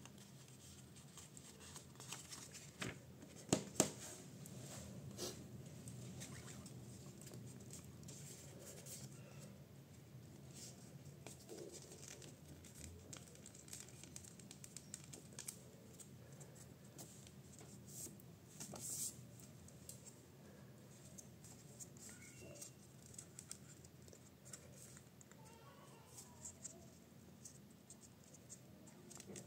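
Sheet of A4 printer paper being folded and creased by hand: faint rustling and crinkling, with louder crinkles a few seconds in and again about two-thirds of the way through.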